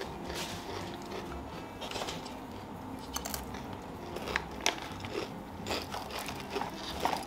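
Crisp snack sticks being bitten and chewed, with several irregular sharp crunches.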